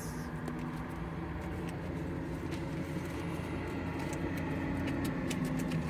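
Car engine idling, a steady low hum heard from inside the cabin, with faint clicks of small objects being handled.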